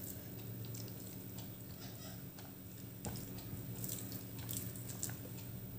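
Quiet eating sounds: soft chewing and small scattered clicks from a meal being eaten off a plate, over a low steady hum.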